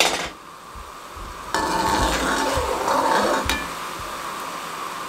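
Sugar syrup boiling in a wide aluminium pan, a steady bubbling sizzle that comes up suddenly about a second and a half in and eases off in the second half. A single light clink about halfway through.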